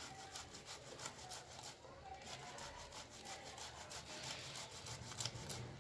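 Boiled potato rubbed down the coarse side of a stainless steel box grater in quick, repeated strokes: a faint, even rasping.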